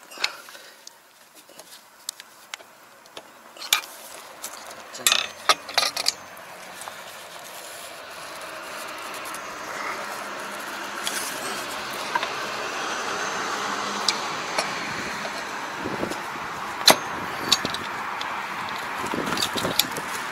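Metal clinks and knocks of hand tools on a rotary tiller's cast gearbox casing as a stuck cover is worked at, with a cluster of sharp taps about five seconds in. A steady background noise builds up from about a third of the way in.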